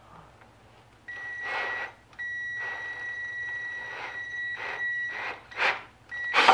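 Cordless drill running with a steady high whine, boring a shallow pilot hole into a wooden crossbar with a 15/64-inch bit, with bursts of scraping as the bit cuts. The whine starts about a second in, breaks off briefly, then stops and starts again near the end.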